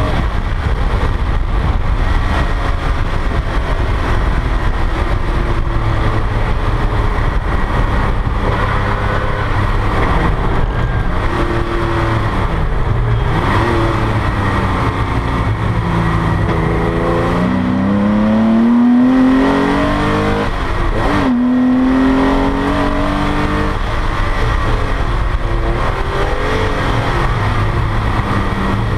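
1986 Porsche 911 race car's air-cooled flat-six engine, heard from inside the cockpit, pulling hard around the track. The revs climb and drop with the gear changes, and it is loudest a little past the middle.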